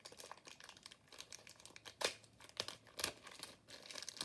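Packaging crinkling and rustling in irregular crackles as Bakugan cards are pulled out of their pack, with a few louder snaps about two and three seconds in.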